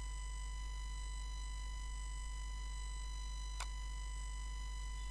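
Steady high electrical whine with a ladder of overtones over a low mains hum: interference noise in the recording, with a single sharp click about three and a half seconds in.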